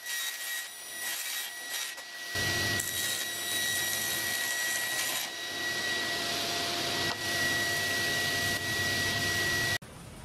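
Table saw running with a steady high whine, ripping a sheet of thin hardwood plywood from about two seconds in, its overhead dust extraction running; the sound stops abruptly near the end, leaving a quieter hum.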